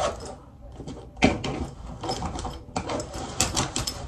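A fabric backpack being handled and packed: rustling and small knocks, one loud thump about a second in, then a quick run of rasping clicks near the end.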